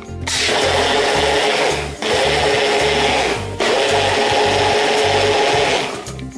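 Personal blender motor whirring as it chops leaves in water into a green purée, run in three pulses with brief breaks about two and three and a half seconds in, its pitch rising as it spins back up. It stops near the end.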